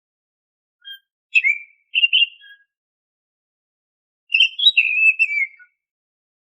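Oriental magpie-robin singing its whistled song: two short phrases of clear, gliding whistles about three seconds apart, with a faint single note just before the first.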